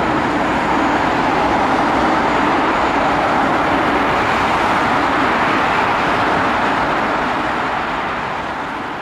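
Steady rushing road-traffic noise, fading out near the end.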